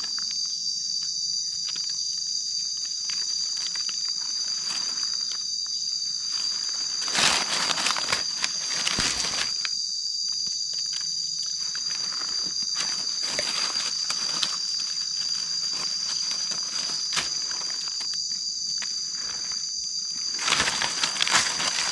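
Steady high-pitched drone of forest insects, with light rustling and crackling of dry leaf litter underfoot and by hand, busiest about a third of the way in and near the end.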